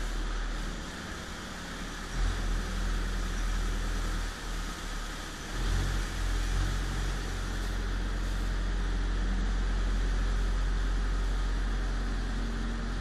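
Farm loader's engine running steadily under a broad whooshing noise as its front-mounted straw-spreading drum flings bedding straw. The engine rumble swells about two seconds in and again about six seconds in.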